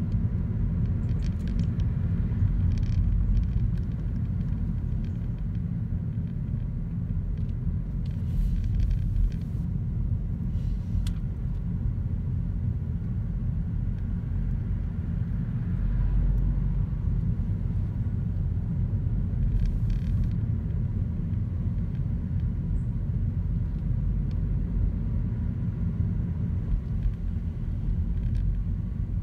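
Road noise inside a moving car's cabin: a steady low rumble of engine and tyres, with a couple of brief hisses.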